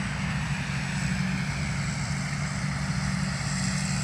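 Rice combine harvester's diesel engine running at a steady speed: a constant low hum with a thin high whine over it.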